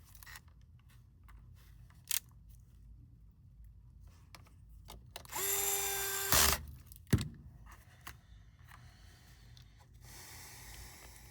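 Small electric screwdriver running for about a second, driving in the screw that holds the laptop's SSD, followed by a sharp click. Light clicks from handling small parts come before and after.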